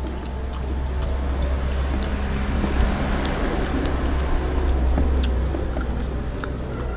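Eating sounds: short light clicks of plates and mugs and some chewing, over a steady low hum and a rushing noise that builds through the middle and fades again.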